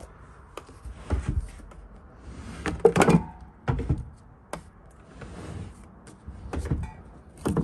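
Drawers of a homemade arts and crafts cabinet being slid shut and pulled open, giving a series of knocks and thumps, the loudest about three seconds in.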